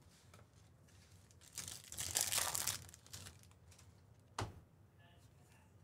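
A stack of trading cards being handled and slid against one another: a soft rustle about two seconds in, then a single short click.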